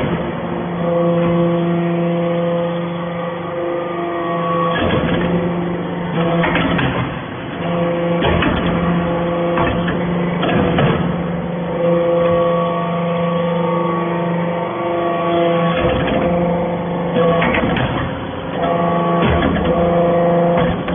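Hydraulic aluminum chips baler running: a steady pitched hum from its motor and pump, whose tones drop out and come back now and then, with a sharp clank every couple of seconds.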